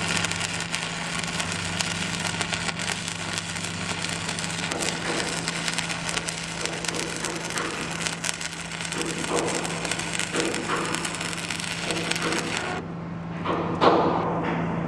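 Stick (shielded metal arc) welding with a 6011 5/32-inch coated electrode on steel plate: the arc crackles and sizzles steadily, then stops abruptly about 13 seconds in when the arc is broken. A steady low hum runs underneath, and a knock or two follows the stop.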